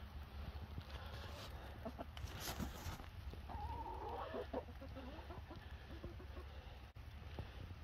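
A flock of hens clucking. About three and a half seconds in, one hen gives a drawn-out call that falls and wavers for about two seconds. A low, steady rumble runs underneath.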